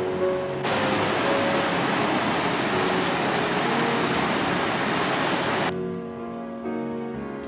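Shallow mountain stream rushing and splashing over granite rocks, a loud steady rush that starts suddenly about a second in and cuts off suddenly near the end, with background music beneath and after it.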